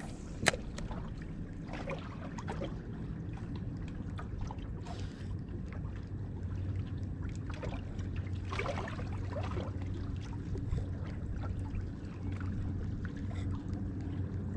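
A steady low hum from the small fishing boat with light water sounds. A single sharp click comes about half a second in, and faint ticking and rattling follows later as the spinning rod and reel are worked through a retrieve.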